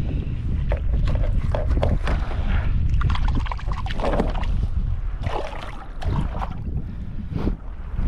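Wind rumbling on the microphone, with choppy water slapping and splashing against the plastic hull of a Hobie fishing kayak in irregular bursts.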